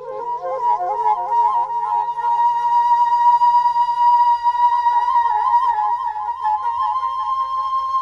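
Background music: a flute-like melody with ornamented, wavering notes settling into a long held note, over a low steady drone.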